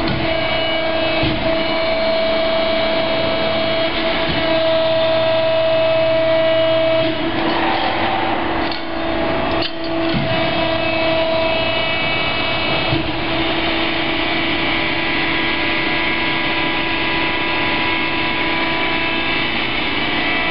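Cincinnati 175CB10 CNC hydraulic press brake running under power: a steady whine from its hydraulic pump and motor over a mechanical hum. The main tone drops away about seven seconds in, with two short dips near nine and ten seconds, and returns about six seconds later.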